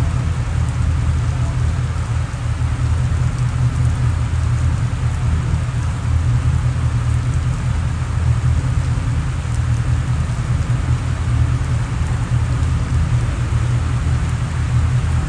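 Heavy tropical rain pouring steadily, an even hiss over a constant low rumble.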